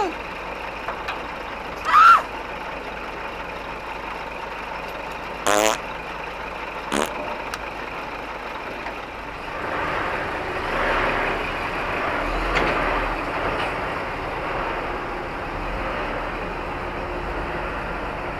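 Heavy truck noise with a short rising squeal about two seconds in, then a brief sharp hiss-like burst and a click. A louder rumble of a heavy vehicle builds from about halfway through.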